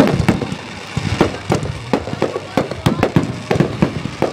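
Aerial fireworks display: shells launching and bursting overhead in a fast, irregular string of sharp bangs, about four a second.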